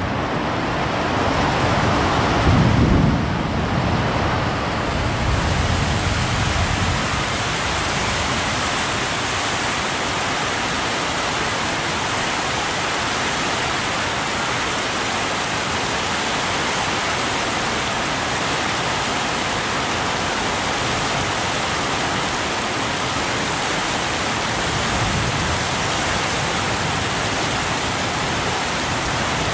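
Steady rain falling on a dirt yard, puddles and trees: an even hiss. A brief low rumble comes about two to three seconds in.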